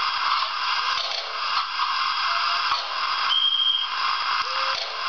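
Steady hiss and light rattling from a model locomotive's digital sound decoder, played through a small loudspeaker. A short, high whistle tone sounds about three and a half seconds in.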